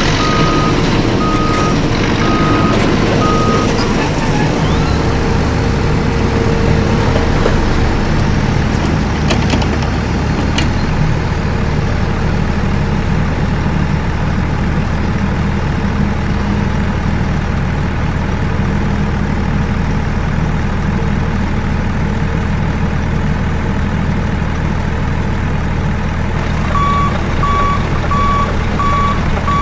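Heavy truck engine running steadily, its low rumble growing heavier about five seconds in, with a reversing alarm beeping at an even pace for the first few seconds and again near the end.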